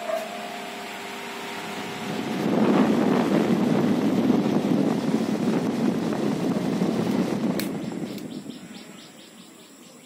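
Small Lazer table fan running: a steady motor hum, then a loud rush of air from the spinning blades from about two and a half seconds in, which dies away near the end. A single click comes shortly before the rush fades.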